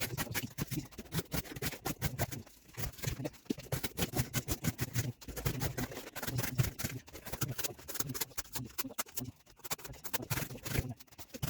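Victorinox Hunter Pro Alox pocket-knife blade cutting through cardboard over and over, a fast run of short scraping, crunching strokes.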